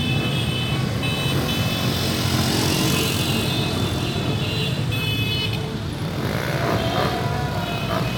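Many motorbikes running together in dense street traffic, with a high horn held steadily until about five and a half seconds in.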